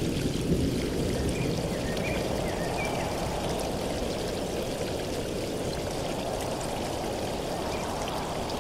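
Shallow stream of water running steadily over stones and twigs.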